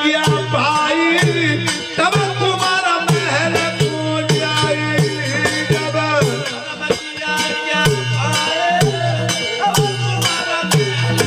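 Live Indian folk devotional music: male voices singing over a steady beat of hand cymbals, a drum and jingling waist bells, about two strikes a second.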